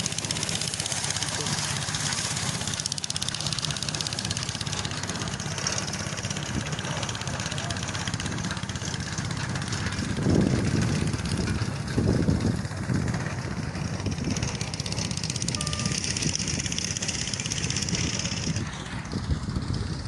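A motor engine running steadily, with a steady hiss over it and a few louder low surges about halfway through.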